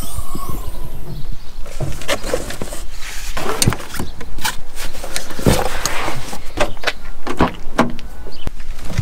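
Knocks and clunks of a bag being handled in a car's hatchback boot, then the driver's door handle pulled and the door opened, all over a steady low rumble.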